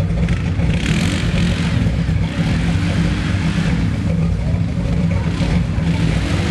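A 4x4 truck's engine running loud at fairly steady revs, with a deep drone.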